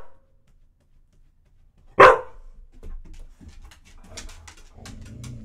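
A large black dog barks once, sharply, about two seconds in, followed by faint clicks and rustling with a low rumble underneath.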